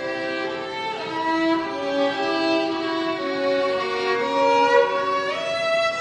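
Slow instrumental music: a bowed-string melody of long held notes, sliding between notes about a second in and again near the end.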